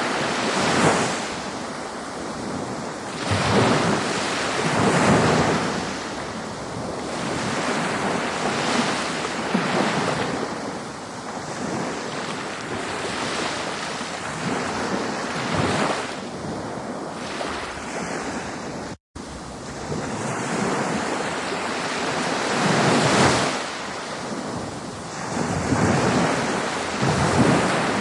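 Ocean surf: waves washing in, a steady rushing that swells and eases every couple of seconds. The sound cuts out completely for an instant about two-thirds of the way through.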